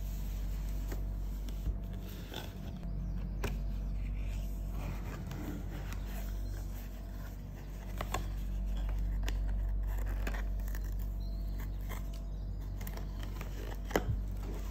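Thin cardboard perfume box being handled and opened by gloved hands: scraping and rustling of the paperboard flaps with scattered light clicks and taps, the sharpest near the end. A steady low hum runs underneath.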